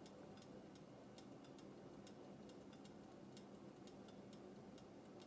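Near silence: a faint steady hum with light ticks, a few a second.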